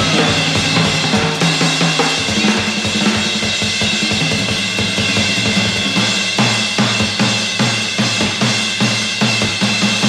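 Jazz drum kit solo: busy strokes across drums and cymbals, settling about six seconds in into a steady pulse of strong drum strokes about twice a second.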